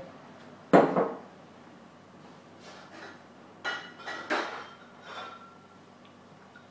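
Bar glassware and utensils being handled: one sharp knock about a second in, then three lighter clinks that ring briefly.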